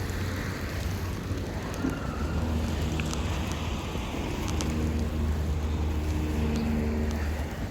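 Wind buffeting the microphone in a snowstorm, a steady low rumble, with a faint droning hum in the second half and a few light ticks.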